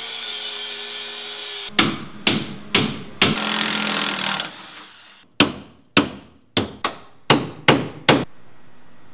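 Angle grinder cutting through a seized leaf-spring bolt with a steady whine, then sharp hammer blows on steel: four strikes about half a second apart, another short stretch of grinding, then about seven more strikes. The sound stops abruptly near the end.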